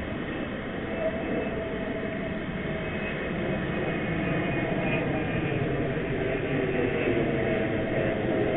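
Ocean surf breaking on a sandy beach, a steady rushing noise that grows slightly louder toward the end.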